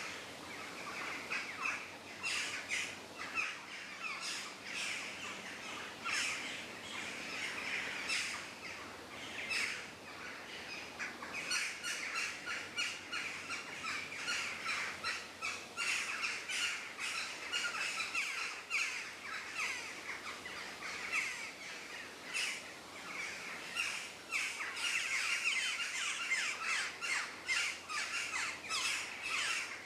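Forest ambience of many birds chirping and calling at once, a dense, unbroken chorus of short high calls.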